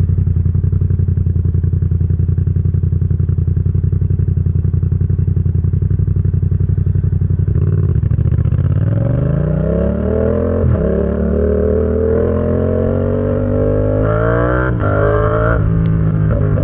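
Yamaha XSR700's parallel-twin engine breathing through an SC Project exhaust, idling with a steady pulsing beat, then pulling away at about eight seconds and accelerating. The note climbs with two quick upshifts, one about a third of the way through the climb and one near the end.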